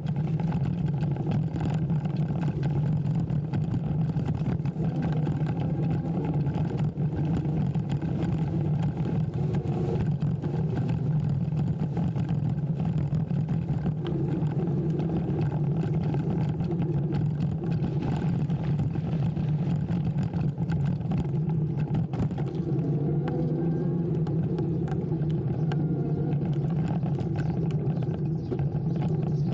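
Steady riding noise from a moving electric bike: wind rushing over the handlebar camera's microphone, with tyre rumble, holding an even level throughout.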